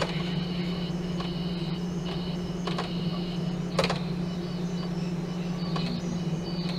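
Brushless outrunner motor on a prototype FOC controller, humming steadily with a high whine over it and giving a few sharp clicks as it jerks the big propeller without getting it spinning: a sensorless startup failing.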